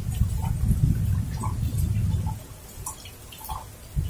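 Heavy rain with gusts of wind buffeting the microphone. The wind rumble eases a little past two seconds in and picks up again near the end, with scattered drops ticking and dripping.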